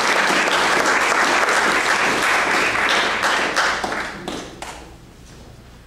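Audience applauding, dying away with a few last scattered claps about four seconds in.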